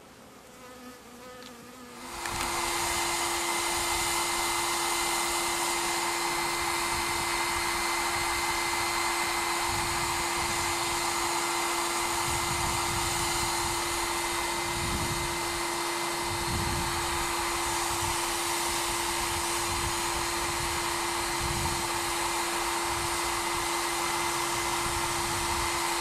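Honeybees buzzing, then about two seconds in a homemade bee vacuum switches on and runs with a steady hum. It is set to a very low speed so that it doesn't hurt the bees it sucks up.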